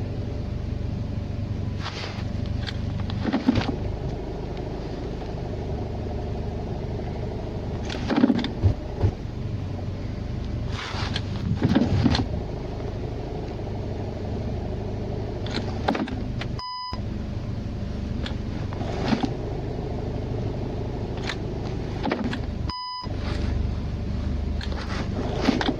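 Second-generation VW Tiguan's 1.4-litre, 150 hp petrol engine running with a rapid, frequent knock, which the owner takes for the flywheel; the dealer puts it down to an overrunning clutch. Short beeps sound twice, well into the recording.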